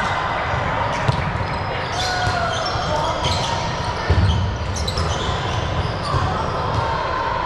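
Ball game on an indoor court: a ball hits and bounces sharply several times, with voices of players in the background.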